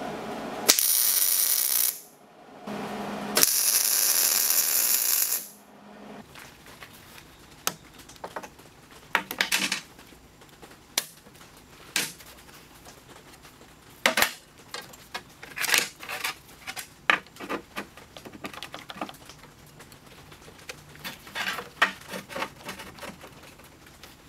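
MIG welder laying two tack welds, each about two seconds of steady arc noise, on the butt joint of a sleeved steel tube drop axle. Afterwards come scattered metallic clinks and knocks as the clamps and axle are handled.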